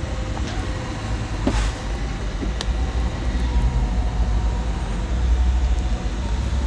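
Electric motor of a motorhome's drop-down bed running as it drives the bed up: a steady low hum with a few light clicks.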